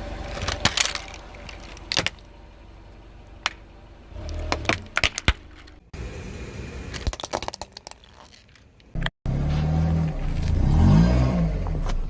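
Car tyres rolling over and crushing toys, with sharp cracking and snapping of breaking objects in several short cuts. In the last few seconds a loud low drone rises and falls in pitch, alongside the car running.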